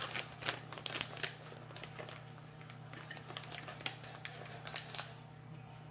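Crisp chicken-based chips being chewed: an irregular run of crackly crunches, thickest in the first couple of seconds, then sparser, with a short flurry near the end.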